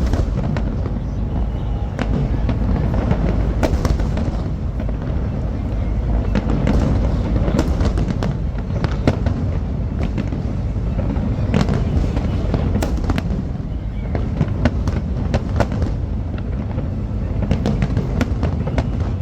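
Fireworks display going off continuously: a steady deep rumble of bursts with many sharp crackles and pops scattered through it.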